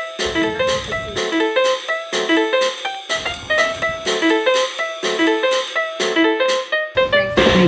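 Background music: an upbeat instrumental with quick plucked notes over a steady beat. Near the end it gives way to a louder track with a heavy bass.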